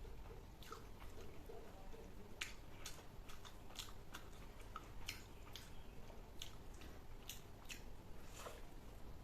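A person chewing food, with short, faint mouth clicks coming at irregular intervals.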